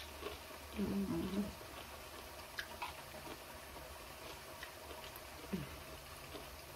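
A person eating: a short hummed "mmm" about a second in, then a few faint clicks of chewing over a steady low hum.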